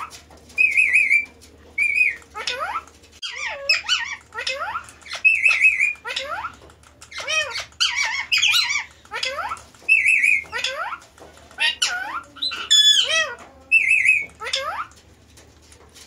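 Rose-ringed (Indian ringneck) parakeets calling over and over: short sharp squawks and sweeping calls that bend up and down in pitch, broken by a short wavering trill note about every few seconds.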